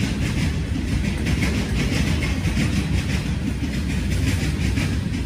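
CSX freight train rolling past, its cars' wheels rumbling and clattering steadily on the rails.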